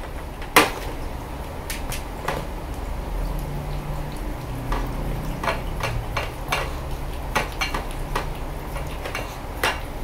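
Pomeranian lapping milk at a small bowl, its tongue and muzzle knocking the bowl in irregular sharp clicks and clacks, with one loud clack about half a second in and a busy run of clicks in the second half.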